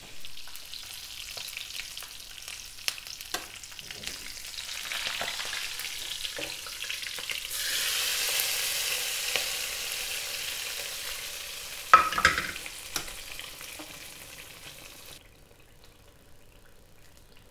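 A tempering of garlic, ginger and whole red chillies sizzling in hot oil, then poured into a clay pot of cooked mustard greens, where it sizzles harder for several seconds before cutting off near the end. A sharp knock comes about two-thirds of the way through.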